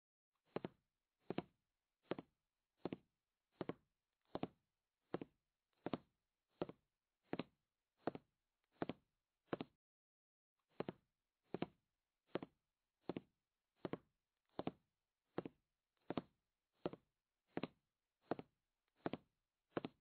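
Soft knocks repeating at a steady, even pace, about four every three seconds, with a break of about a second near the middle.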